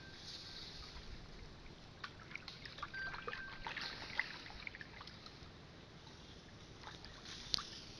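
River water splashing and trickling around a wooden canoe as someone wades in the shallows, with scattered small clicks and knocks, the sharpest about four seconds in and again near the end.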